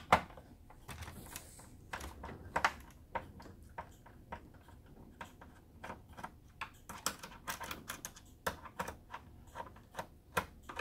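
Small screwdriver clicking and scraping on the screws of an all-in-one PC's metal stand hinge, with light taps of hands on the plastic back cover: an irregular run of small sharp clicks, several a second.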